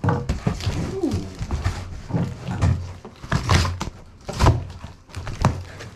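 Cardboard box being cut and torn open with a dull knife: a string of scraping, tearing rasps and dull thumps as the cardboard is sawn through and the flaps are pulled back.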